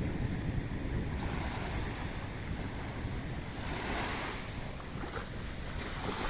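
Wind buffeting the microphone over the rush of sea water, with a swell of hiss about four seconds in.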